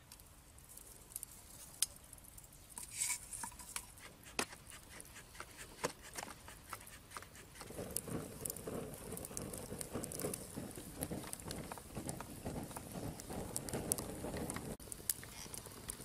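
Small wood-and-twig fire crackling in a clay hearth, with scattered sharp pops at first. About halfway in, the crackle grows dense over a low rushing as the flames take hold. The sound breaks off abruptly near the end.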